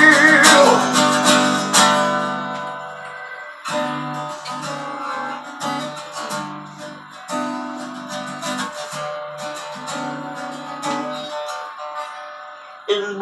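Acoustic guitar played alone in slow strummed chords, each left to ring and fade before the next. A held, wavering sung note trails off in the first second.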